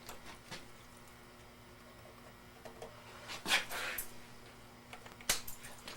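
Cobra 2000 CB radio's speaker giving faint crackles and short bursts of buzz as a wet finger touches the audio circuit, the loudest about halfway through. It is a sign that the audio chip is working.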